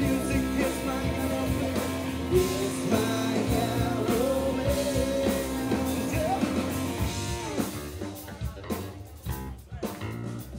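Live rock band playing, with a singer over electric guitars, bass and drums. About eight seconds in, the full band sound breaks up into short, separate hits with gaps between them.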